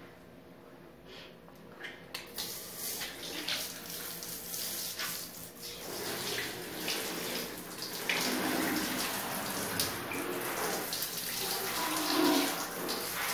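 Water running and splashing into a bathtub as a bathroom is rinsed during cleaning, starting about two seconds in and getting louder about eight seconds in.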